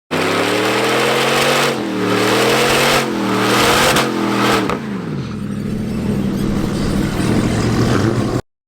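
Muscle car's engine accelerating hard, its pitch climbing and dropping back at gear changes about a second apart, then falling away as the throttle is lifted and settling to a lower, steadier note. The sound starts and cuts off abruptly.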